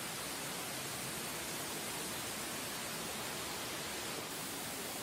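Water from a burst water main pouring in sheets down the subway track walls and onto the tracks: a steady rushing hiss, its tone shifting slightly about four seconds in.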